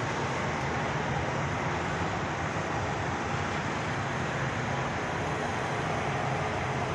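Steady road and engine noise of a vehicle being driven.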